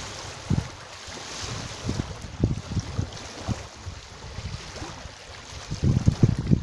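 Wind buffeting the microphone in irregular low gusts, strongest near the end, over a steady hiss of wind and small waves on open water.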